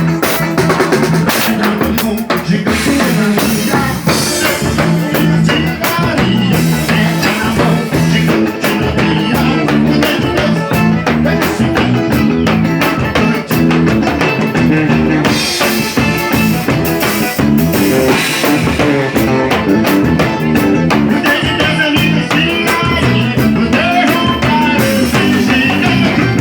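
Band music in a xote, a forró rhythm, with drum kit and guitar, playing steadily.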